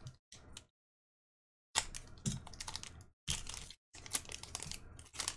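Baseball card pack wrapper crinkling and cards sliding against one another in the hands as a pack is opened. A few short clicks, then from about two seconds in a dense run of crackling.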